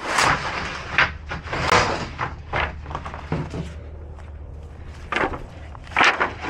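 Handling noises: a series of knocks and scrapes, like a door or cargo being moved, over a steady low hum.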